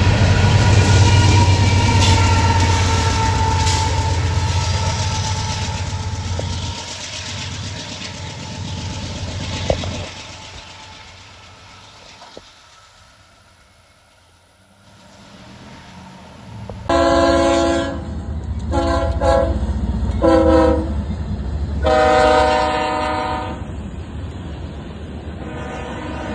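Freight cars rolling past with wheel rumble and rail clatter, fading away. Then a freight locomotive's air horn sounds four blasts, the first and last longer, as the engine approaches a road grade crossing: the crossing warning signal. Near the end, more freight cars rumble past.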